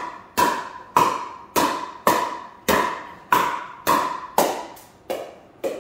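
Rapid pickleball volleys: a paddle strikes a hollow plastic pickleball about ten times, roughly every 0.6 s, each hit a sharp pock with a short ringing ping. The last couple of hits are softer.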